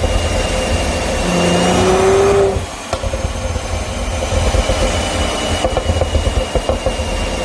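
Mercedes-AMG GLC43's 3.0-litre twin-turbo V6 revved and held for about two and a half seconds, then released, followed by a run of irregular crackles and pops from the exhaust as it settles back: the overrun pops added by an engine tune.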